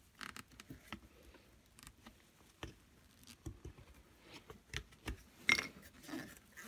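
Faint scraping and light tapping as a piece of wood is worked around a shaft oil seal and dust cover to seat them in a gearbox casting, with a sharper click about five and a half seconds in.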